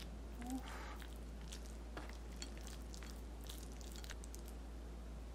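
Faint, scattered clicks of a metal spoon scraping and tapping a ceramic bowl while scooping rice with melted cheese.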